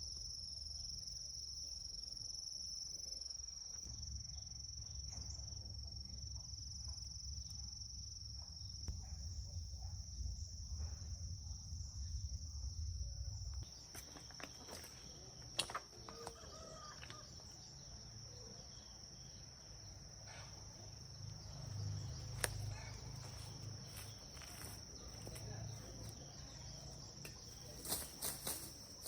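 Crickets chirring in a steady, unbroken high drone. A low rumble lies under it for the first half and stops abruptly, and a few light clicks and knocks come later.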